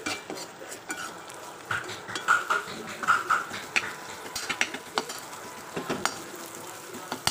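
Steel spatula scraping and knocking irregularly against a kadhai as shredded boiled chicken is stir-fried in it.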